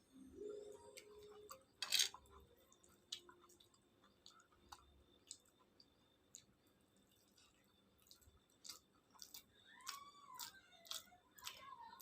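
A person chewing a mouthful of khichuri with fried vegetables and egg, with a sharp crunch about two seconds in and a run of wet mouth clicks and smacks in the last few seconds.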